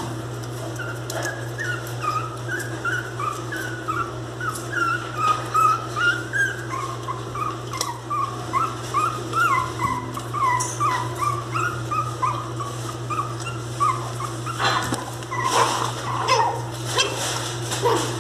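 Miniature pinscher puppies whimpering: a fast, unbroken string of short, high-pitched cries, several a second, each bending up and down in pitch.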